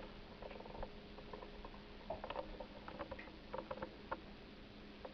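Faint, irregular small clicks and taps over a steady low hum, as picked up by an action camera in its waterproof housing under water in a filled sink. The taps come thicker in the middle.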